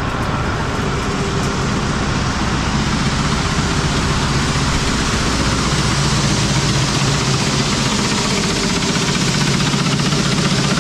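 An engine running steadily with a broad rushing noise from grain-handling machinery as beans are moved into a bin, growing slightly louder.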